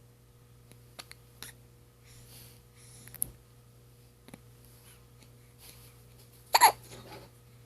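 Newborn baby hiccupping: a few faint, short hics in the first seconds, then one much louder, sharp hiccup with a brief squeak about six and a half seconds in.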